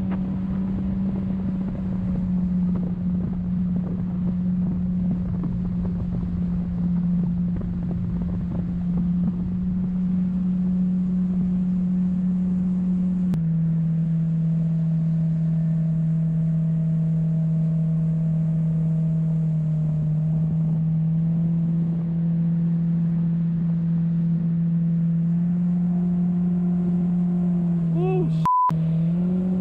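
Jet boat's engine running steadily at speed, with water rushing along the hull. About 13 seconds in, the engine note drops to a lower steady pitch and stays there as the boat runs on.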